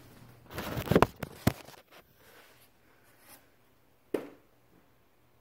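A television's perforated back cover being handled and moved aside: a scraping rattle about half a second in with sharp knocks around one and one and a half seconds, then a single click a little after four seconds.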